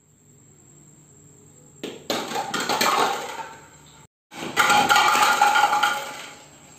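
A ball hitting a tower of plastic stacking cups, and the cups clattering down and rolling on a tiled floor. This happens twice, with a short break between.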